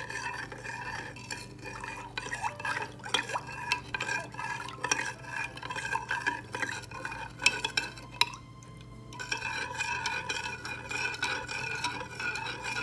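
A metal spoon stirring sugar and water in a glass measuring cup, with quick repeated clinks and scrapes against the glass and a short pause about eight seconds in. The sugar is being stirred to dissolve for a sugar syrup.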